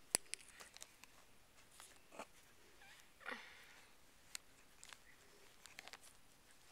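Faint handling noise: scattered sharp clicks and a short rustle about three seconds in, as the camera is moved over fabric.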